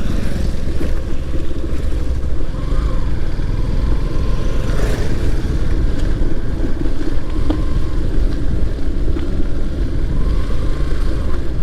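Yamaha FZS V3 single-cylinder motorcycle riding along at steady speed: a continuous rush of engine and wind noise, heaviest in the low rumble, with no break or change in pace.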